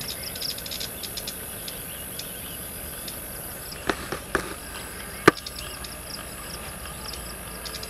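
Insects chirping in a steady high drone with rapid ticking calls, over a low outdoor rumble. Three sharp clicks or snaps land about four, four and a half and five seconds in, the last the loudest.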